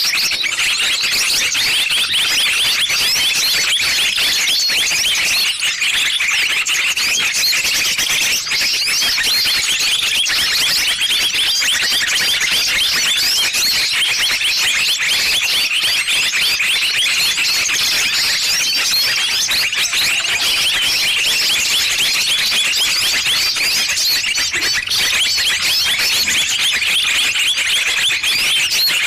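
A dense, loud chorus of many small songbirds chirping and twittering over one another without a break: a lure recording for trapping small birds.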